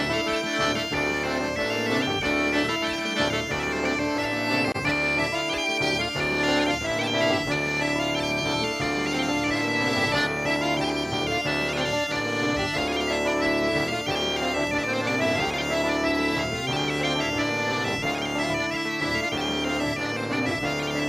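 Live Breton folk dance tune played on bagpipes over a steady, unbroken drone.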